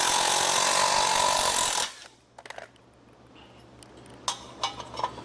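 A handheld power tool cutting or grinding metal runs steadily with a whining tone and stops about two seconds in. It is widening or cutting a part for clearance over thicker main cap bolts. A few light clicks and taps of metal parts being handled follow.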